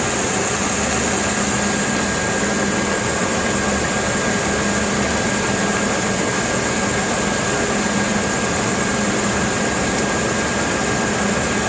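Sand-mining pump engine running steadily under a loud, even rushing hiss of high-pressure mud and water.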